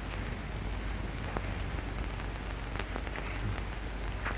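Steady hiss and crackle of an old 1929 film soundtrack, with a low hum and a few faint clicks, in a pause between lines.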